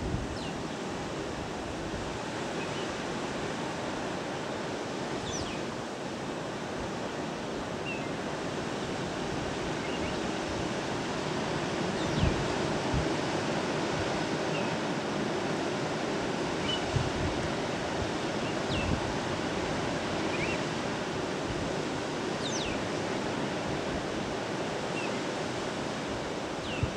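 Surf breaking on a beach below, a steady rushing wash, with wind bumping the microphone a few times in the middle.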